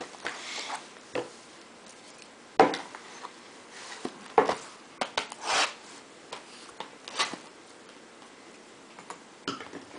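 Sealed Bowman baseball card boxes handled on a tabletop: scattered knocks and taps, the loudest about two and a half seconds in, with short rustles of their plastic wrap.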